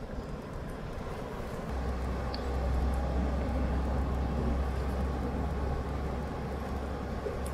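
Steady outdoor noise by the sea, with a low rumble of wind on the microphone from about two seconds in until about six seconds in.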